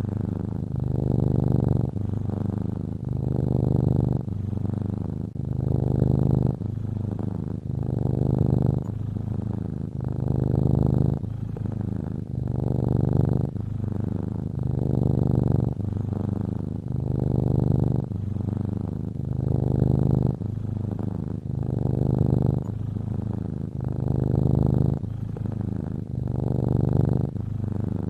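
A cat snoring in its sleep: a low, rasping rumble that swells and fades with each breath, about once every two seconds.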